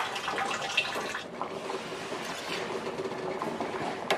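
Pot of water with lamtoro seeds at a rolling boil: a steady bubbling and crackling. About four seconds in, a metal spoon clinks against the stainless pot as the seeds are stirred.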